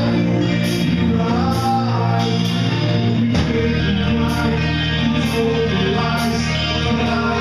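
Live heavy rock band playing: distorted electric guitar and bass chords over drums with steady cymbal strokes, and a male lead singer's vocals. The bass shifts to a new note about halfway through.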